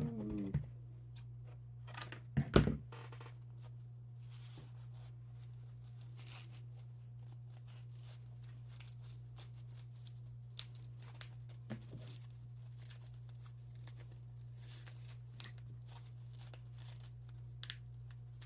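Hook-and-loop (Velcro) cable wrap being peeled and pressed around a rotary tool's cord, with faint ripping and rustling and a couple of handling knocks, the loudest about two and a half seconds in.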